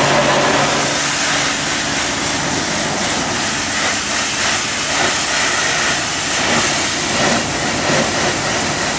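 Pressure-washer wand spraying a high-pressure water jet into the metal housing of a tilted-back kitchen exhaust fan: a steady, loud hiss of spray.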